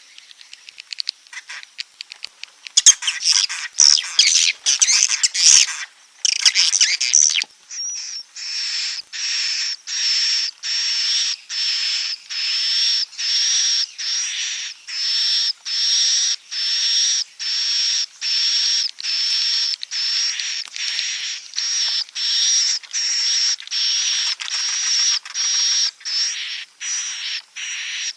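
Recorded swiftlet calls of the kind played as a roosting lure for swiftlet houses. About seven seconds of rapid clicking and chattering chirps give way to a steady run of high calls of even pitch, about one a second.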